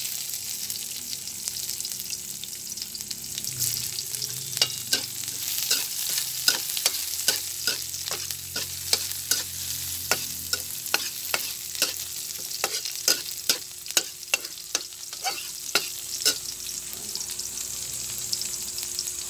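Chopped ginger, garlic and red onion sizzling in hot oil in a wok, a steady hiss. From about four seconds in until about sixteen seconds, the pan is stirred, the utensil clicking against the wok roughly twice a second.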